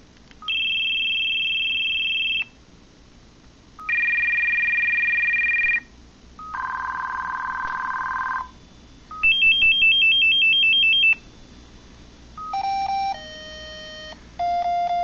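Audiovox CDM-9150X cell phone playing its built-in ringtones one after another, each lasting about two seconds with a short beep before it. First come three steady electronic ring tones, each lower in pitch than the last, then a fast warbling tone, then a beepy jingle melody near the end.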